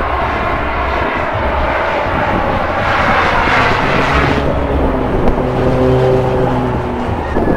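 An airliner passing low overhead. Its engine noise swells to a peak a few seconds in, then eases into a steadier engine hum.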